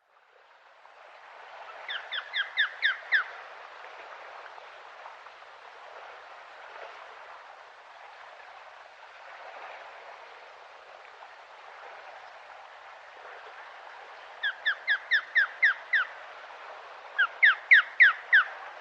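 Osprey calling: three quick series of short, high whistled notes, six or seven to a series, over steady background noise.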